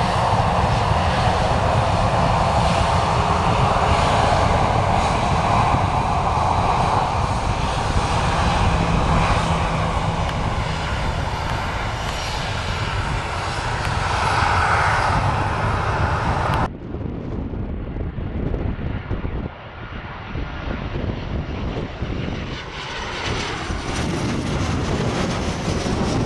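Jet engines of a Jet2 Boeing 737-800 running loud and steady as it passes close by on the ground. About two-thirds through the sound cuts off abruptly to a quieter one, and near the end a second 737-800, gear down on approach, grows louder overhead.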